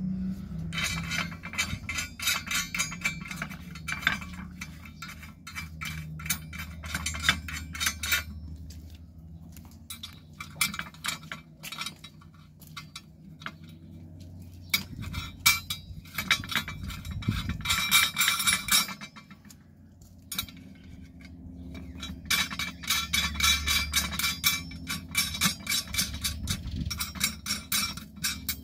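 Steel half nuts being put on and turned down the threaded bolts of a gate motor foundation plate: rapid metallic clicking and clinking in three spells, with short pauses between.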